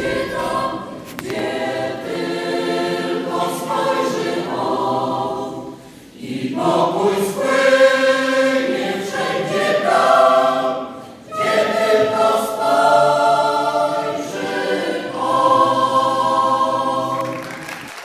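Mixed choir of women's and men's voices singing a cappella under a conductor, in phrases with short breath pauses, in a reverberant church. Near the end the singing stops and applause begins.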